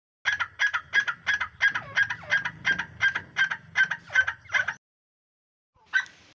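Partridge calling: a fast run of about thirteen short, sharp calls, roughly three a second, for over four seconds, then a pause and a single call near the end.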